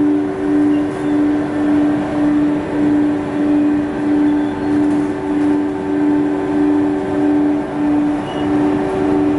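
Textile-waste rag-tearing machine line running, a steady mechanical hum with a strong droning tone that swells and fades about one and a half times a second.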